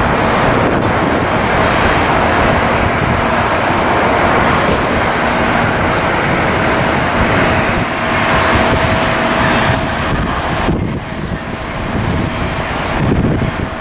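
Jet airliner engines running, a loud steady rush with a faint steady tone in it, easing off a little about eleven seconds in.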